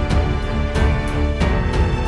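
Background theme music with a heavy bass and a regular beat.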